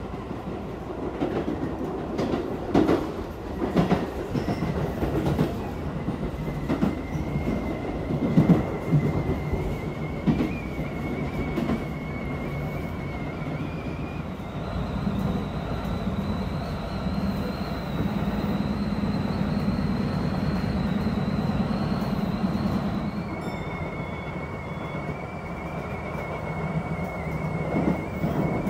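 Tobu Tojo Line electric commuter train running, heard from inside the passenger car: a steady rumble with irregular clacks of the wheels over the rails in the first half. A thin, steady high-pitched tone is held for long stretches, jumping higher about halfway through.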